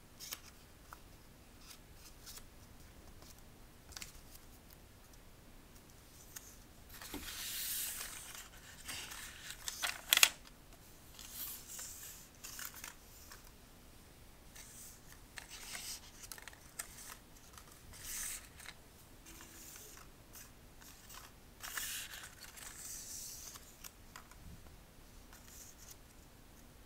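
Origami paper rustling and crinkling as it is folded and creased by hand, in irregular crisp bursts; the loudest, sharpest ones come about ten seconds in.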